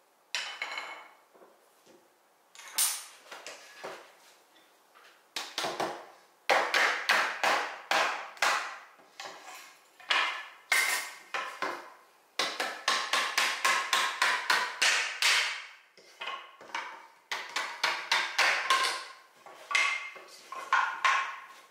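A white-headed mallet tapping hardwood frame pieces: sharp knocks, a few at first, then quick runs of several strikes a second through the middle, with a short woody ring after each.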